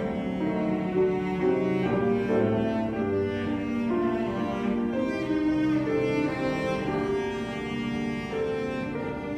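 Cello and piano playing a lyrical classical piece, the cello carrying a sustained singing melody over piano accompaniment.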